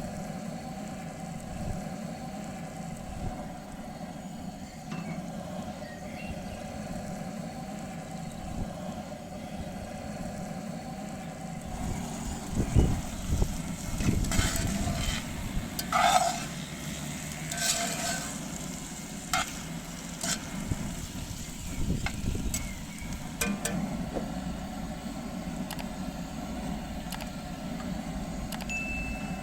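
Food cooking in a pan: a steady sizzle and hum. From about twelve seconds in, irregular knocks and clatters of a utensil stirring against the pan come through.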